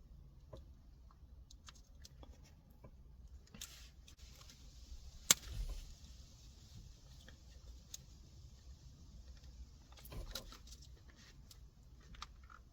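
Faint handling of a plastic gear-knob trim piece being worked loose: scattered light plastic clicks, one sharp click a little over five seconds in and a few more about ten seconds in.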